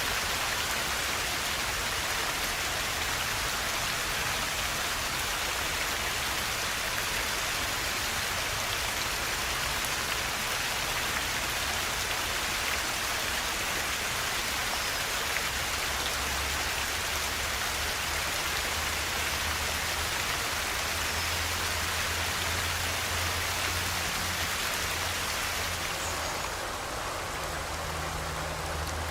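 A forest river flowing: a steady, even rush of water, its bright hiss softening slightly near the end.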